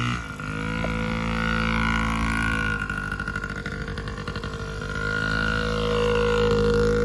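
Yamaha PW50 mini dirt bike's small single-cylinder two-stroke engine running as the bike pulls away and rides across grass. The engine note wavers rapidly for a couple of seconds midway, then grows louder near the end.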